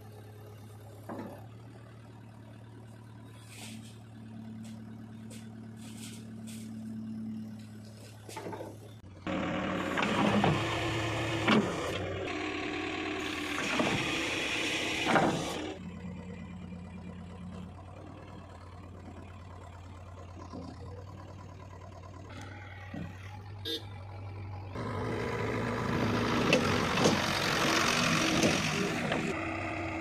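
JCB 3DX backhoe loader's diesel engine running: steady and quiet at first, then working hard and revving in two loud spells, about a third of the way in and again near the end, with a few sharp knocks in the first loud spell.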